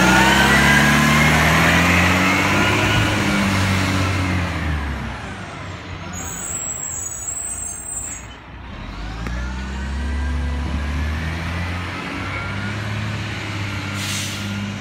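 Side-loader garbage truck's diesel engine pulling away, its pitch rising over the first few seconds, easing off about six seconds in, then rising again. A brief high hiss comes about seven seconds in.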